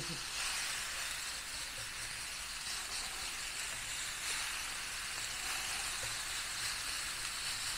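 Ground beef and pork sizzling as they brown in a hot pan on a portable butane stove: a steady, even hiss.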